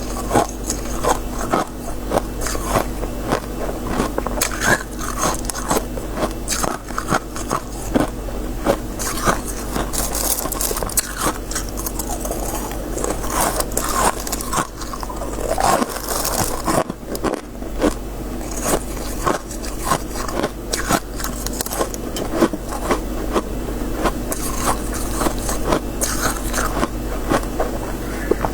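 Crisp freezer frost being bitten and chewed close to the microphone: dense, irregular crunching and crackling, with a steady low hum underneath.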